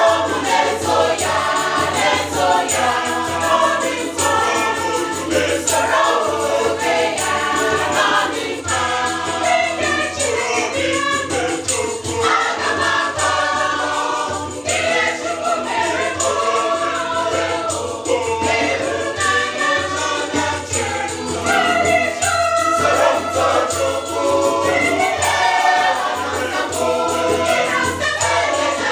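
Mixed gospel choir singing an Igbo praise song in harmony, with electronic keyboard accompaniment and a steady beat.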